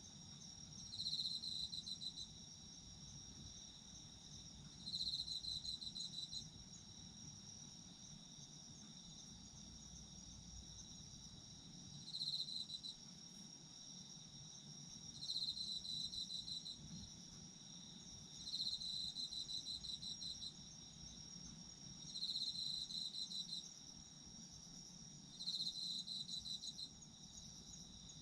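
Autumn insects singing at night: one insect repeats a rapidly pulsed chirping phrase, about a second and a half long, every three to four seconds, over a steady high-pitched trill from others.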